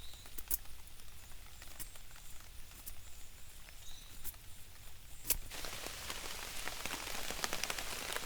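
Rain falling: scattered single drops at first, then heavier, denser rain from about five seconds in.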